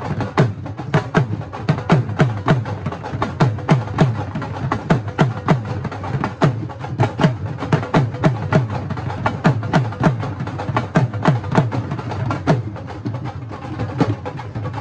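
Several dhol drums beaten together with sticks in a fast, driving kehrwa taal: heavy bass strokes about three to four a second under a dense run of sharp stick cracks.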